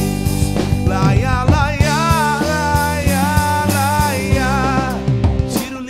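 A live band playing: electric bass, electric guitar, keyboard and drum kit, with a male lead vocal holding long wavering notes without clear words. The band drops back near the end.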